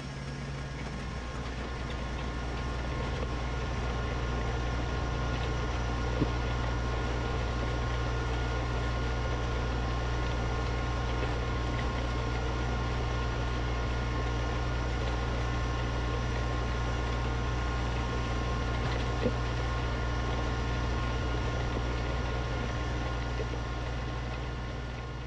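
LS MT125 compact tractor's diesel engine running steadily under load while it pulls a box blade through a gravel driveway. Two sharp knocks stand out, about a third of the way in and again about three quarters in.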